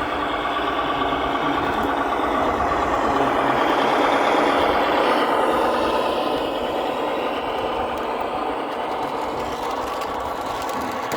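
Simulated truck diesel engine from a 1:14 scale RC truck's sound unit, running steadily through a small speaker. It swells louder about four to five seconds in, then eases off.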